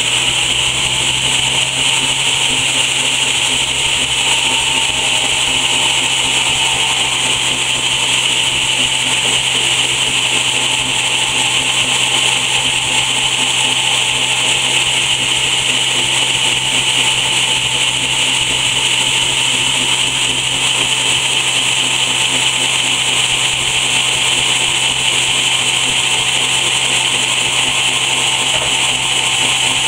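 Large stationary sawmill saw running steadily, with a constant hum and high whine that holds level throughout.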